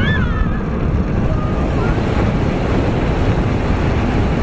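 A roller coaster ride recorded on an on-ride camera: a loud, steady rush of wind buffeting the microphone over the rumble of the train on the track. A brief voice-like cry comes right at the start.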